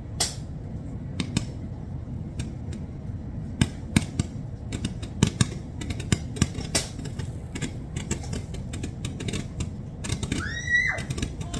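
Irregular sharp clicks and snaps over a low rumble, a few strong ones standing out. Near the end comes a short high tone that rises and then holds.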